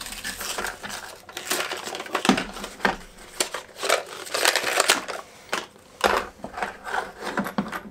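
A cardboard box being opened by hand: irregular rustling and crinkling of the card, with sharper plastic clicks and clatter toward the end as a plastic screwdriver-bit case is pulled out and handled.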